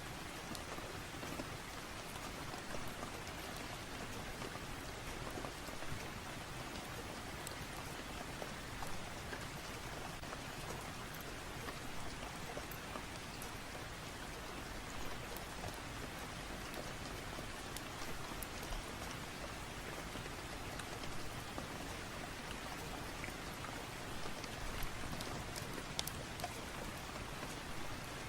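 Steady rain falling, an even hiss with scattered light clicks and pops every few seconds.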